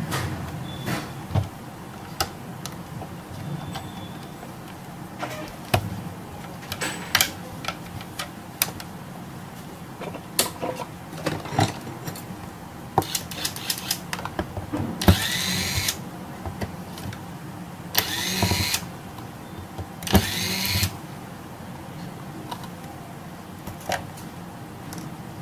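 Clicks and knocks of a Panasonic UX90 camcorder being handled and its strap undone on a workbench. In the second half come three short noisy bursts, under a second each and a couple of seconds apart.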